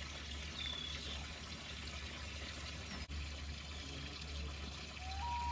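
Water trickling and pouring steadily. A short high whistled note sounds about half a second in, and near the end a lower whistle rises and then holds.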